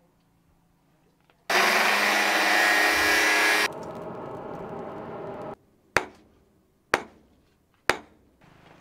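A loud whirring rush for about two seconds, then the quieter rush of air blown through a charcoal forge fire. Then a hammer strikes hot steel on an anvil three times, about a second apart, each blow ringing briefly.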